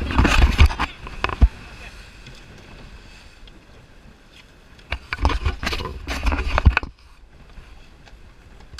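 Rushing noise of a moving rigid inflatable boat: wind and water against the hull, loud with a low rumble and a few knocks. It comes in two loud stretches, the second cutting off abruptly about two-thirds of the way through.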